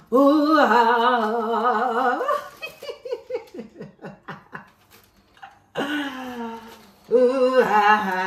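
A woman's voice: a long wavering excited cry, then a string of short laughs, then more laughing and exclaiming near the end.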